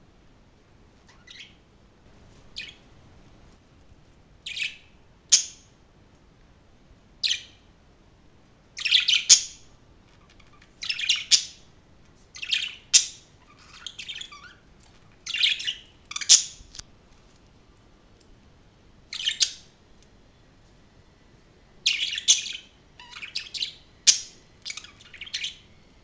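Pet budgerigars chirping: a string of short, sharp calls at irregular intervals, some coming in quick pairs and clusters.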